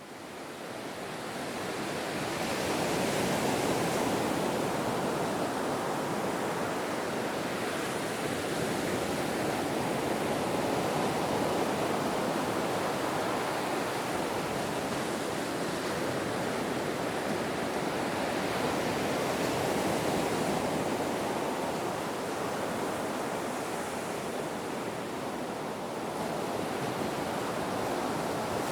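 Ocean surf: a continuous rush of waves washing in. It swells and eases every few seconds and fades in at the start.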